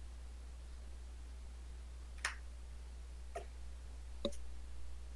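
Quiet room tone with a steady low electrical hum and three light, faint clicks a second or so apart, starting about two seconds in.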